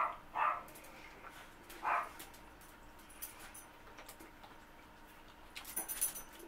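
A dog barking: three short single barks in the first two seconds. Near the end there is a brief crackle of rustling.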